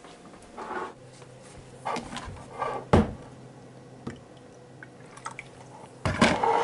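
A ceramic coffee mug handled on a counter: scattered short scraping and handling noises and one sharp knock about three seconds in, over a faint steady low hum.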